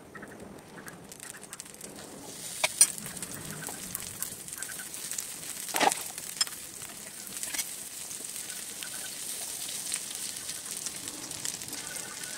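Dosa batter sizzling and crackling as it fries in a greased pan over a low flame. The hiss gets louder about two seconds in, with a few sharper clicks and taps as toppings go on.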